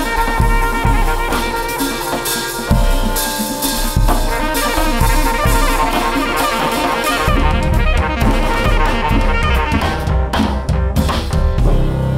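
Live jazz quintet: a saxophone plays sustained melodic lines over drum kit, upright bass, keys and hand percussion. About seven seconds in, the drums and bass get heavier.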